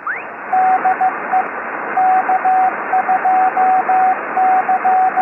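Morse code tone keyed over a steady hiss of HF radio static, with a short rising whistle at the start. The dots and dashes spell 'DE K2C', the opening of the station identification 'DE K2CJB' ('from K2CJB') in amateur radio CW.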